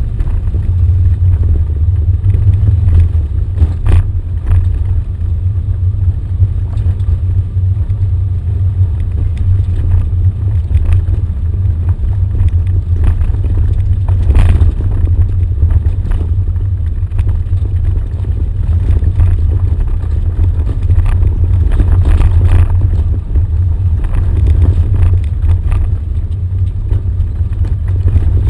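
Off-road vehicle driving over a rough dirt track: a steady low rumble from the engine and running gear, with a few knocks and rattles from the bumpy ground.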